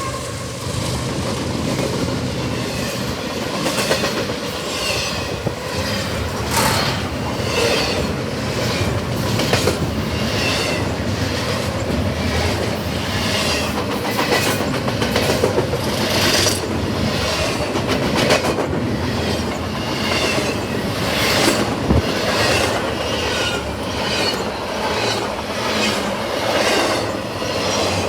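Double-stack container freight cars rolling past, wheels clacking over the rail joints again and again, with short squeals from the wheels now and then.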